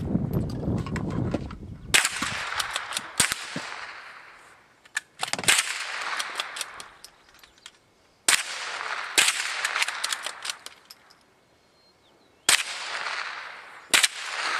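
Rifle fired in single shots, about seven in all, spaced irregularly one to three seconds apart, each shot followed by a long echo rolling back off the surrounding hills.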